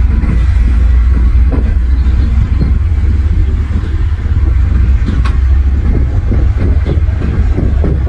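Heavy diesel earthmoving machinery running under load, a steady deep engine rumble with a few faint metallic clinks.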